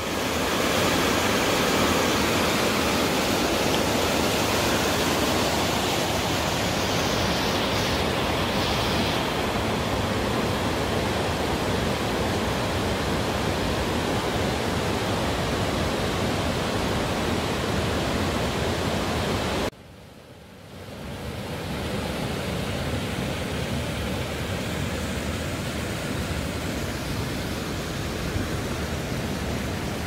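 Steady rush of a rocky mountain stream flowing below. It drops away suddenly about twenty seconds in, then comes back a little softer.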